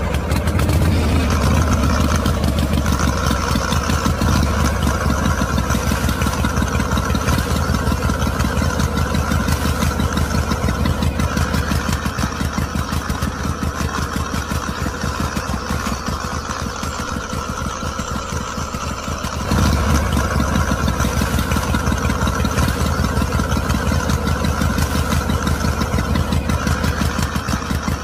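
Engine running steadily with a fast, even chug, the sound given to a miniature stationary engine driving a belt-driven model flour mill; it gets louder about two-thirds of the way through.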